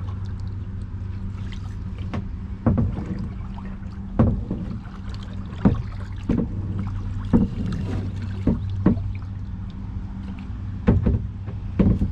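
Kayak moving off under paddle, with irregular sharp knocks and splashes from the paddle strokes, over a steady low hum.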